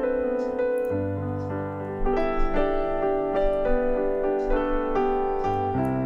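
Background music: a soft piano piece playing a melody over held chords, with lower notes coming in about a second in.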